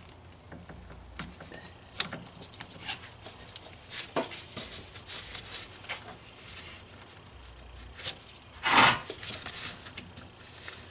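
Hands working a plastic push-button quick-connect fuel line fitting off a fuel filter: scattered clicks and short scrapes of plastic and metal, with one louder scrape about nine seconds in.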